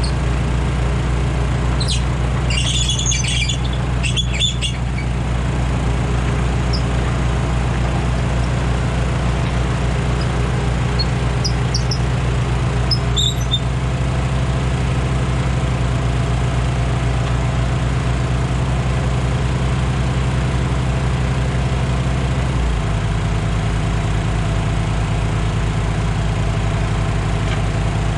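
An engine running steadily, its pitch dropping about 23 seconds in, with a few brief high-pitched chirps near the start and about 13 seconds in.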